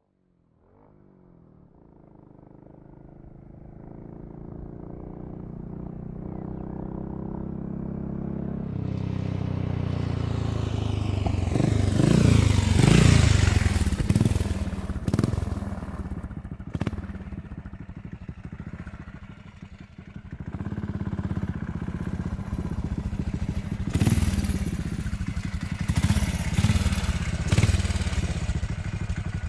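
Motorcycle engine running, growing gradually louder over the first dozen seconds to its loudest around the middle, where its pitch swings up and down, then running on with short louder revs twice near the end.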